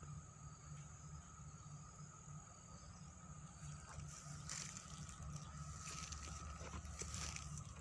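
Footsteps crunching and rustling through dry leaf litter and loose stones, starting about halfway in, over a steady high-pitched insect drone and a low rumble.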